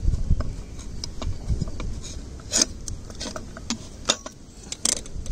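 Small metal clicks and light scraping from handling the parts of an opened electric clothes iron as it is reassembled, with a few low knocks near the start and sharper clicks later on.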